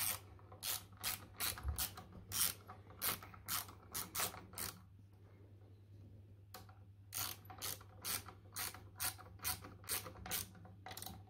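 Hand ratchet clicking at about three clicks a second as it drives bolts down into a water softener's plastic valve head, pausing for under two seconds near the middle before starting again on the next bolt.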